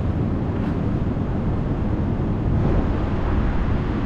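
Steady outdoor ambient noise with a heavy, uneven low rumble and no distinct events.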